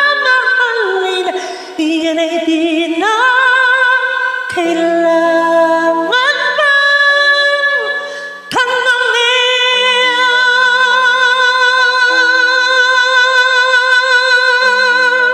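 A man singing a high, drawn-out line with wide vibrato, sliding between notes, over piano-like keyboard accompaniment; about eight and a half seconds in he takes up one long held note with vibrato that lasts to the end.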